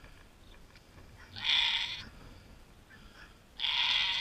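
Goat doe in labour crying out with two rough bleats about two seconds apart, each about half a second long, as she strains to deliver the second of her twin kids.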